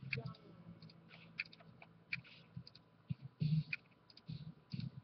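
Computer mouse clicking now and then, a handful of sharp clicks, with a few dull thumps from the desk, the loudest about three and a half seconds in.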